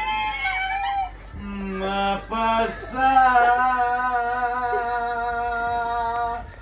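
A man singing unaccompanied in a small room: a few short notes, then one long held note that lasts about three seconds.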